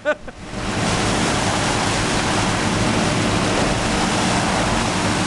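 Water gushing out of a concrete mixer truck in a heavy, steady torrent, building up over the first second, with a low steady hum from the truck beneath it.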